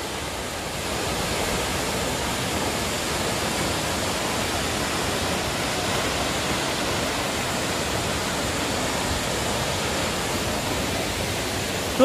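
Waterfall crashing onto rocks close by: a steady, unbroken rush of falling water.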